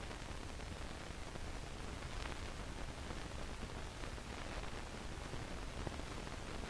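Steady hiss and faint crackle of an old film soundtrack with no voice or music, broken by a few faint clicks.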